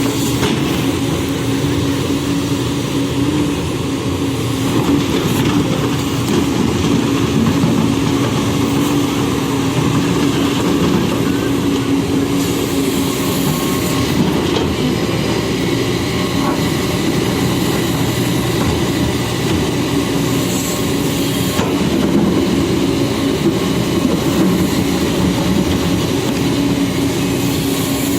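Backhoe loader's diesel engine running steadily under load, with a constant droning hum.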